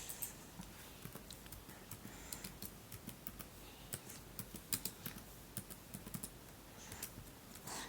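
Faint, irregular clicking, several clicks a second, the kind of sound keys or taps make, with a short breathy hiss near the end.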